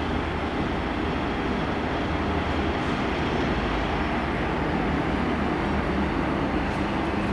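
Steady low drone of TEM18V diesel shunting locomotive engines running, as one slowly brings a passenger train along the platform.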